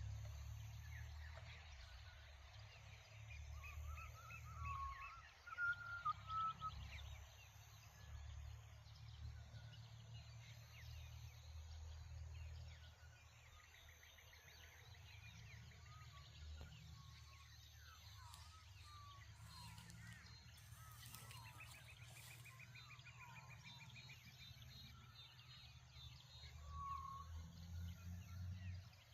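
Faint morning birdsong: scattered short whistled calls and a brief trill, over a low, steady rumble of wind.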